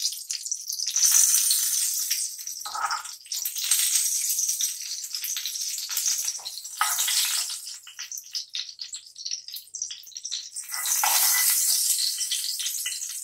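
Hot oil sizzling in a frying pan, swelling in bursts as shallow-fried patties are lifted out with a steel spoon, with scrapes and clinks of the spoon against the pan.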